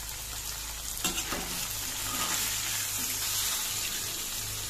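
Paneer cubes sizzling steadily in hot oil in a steel kadhai, with a steel slotted spoon knocking and scraping against the pan about a second in as the golden-fried cubes are scooped out.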